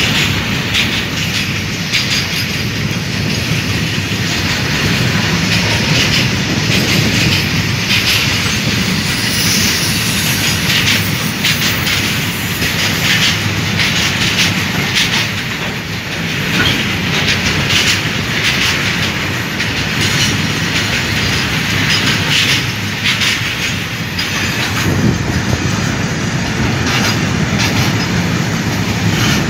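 Long freight train of open-top wagons passing close by: a steady rumble of wheels on rail with rapid clickety-clack and clatter as the wagons' wheels cross the rail joints.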